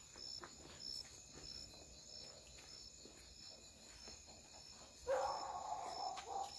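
Crickets chirping in a steady high pulse about twice a second, with faint rustling of footsteps through dry brush. About five seconds in, a louder pitched sound rises over them for about a second and a half.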